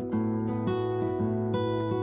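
Instrumental background music: a melody of plucked notes over sustained chords, new notes striking about every half second.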